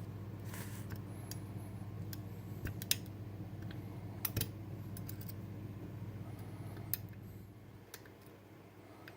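Lock picks clicking and scraping in a Bellock cam lock as its sliders are worked: a handful of scattered small sharp clicks, over a steady low hum.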